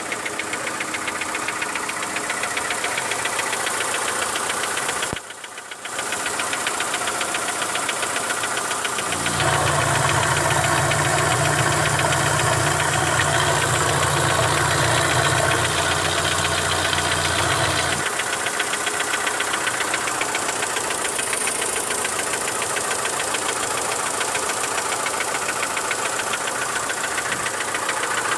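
Mitsubishi Lancer IX's 1.6-litre four-cylinder engine idling with a rapid, even ticking knock, which the owner takes for worn hydraulic lash adjusters on the middle cylinders. The sound dips briefly about five seconds in, and a deeper steady hum joins for about nine seconds from around nine seconds in.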